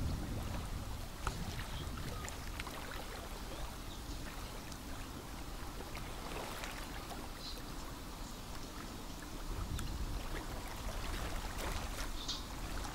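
Small wind-driven ripples lapping and splashing at the pond's edge, a steady watery wash with many small ticks. Wind gusts rumble on the microphone at times, and two short faint high chirps come near the middle and near the end.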